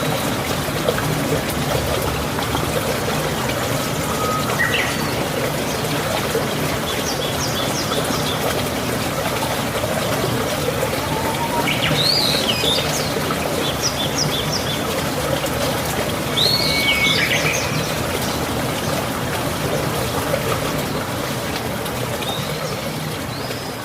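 Water trickling steadily, like a small stream, with birds chirping in short calls every few seconds over it. The sound eases down slightly near the end.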